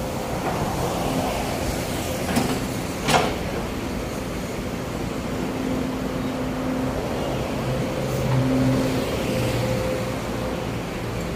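Sumitomo S265 hydraulic excavator's diesel engine running under load as its bucket digs into soil, with a sharp clank about three seconds in and the engine louder for a moment around eight seconds in.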